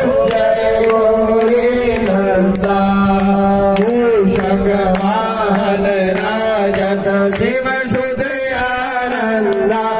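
Indian devotional music: a melody that bends and glides over a steady held drone, with percussion strokes.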